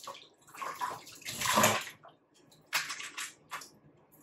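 Water being worked into wet curly hair and the hair scrunched, giving wet hissing and squishing. The longest and loudest hiss comes about one and a half seconds in, followed by several shorter ones.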